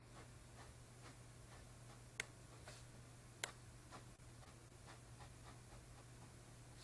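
Near silence with faint ticks and scratches of a pen making quick cross-hatching strokes on sketchbook paper, two taps a little louder about two and three and a half seconds in, over a low steady hum.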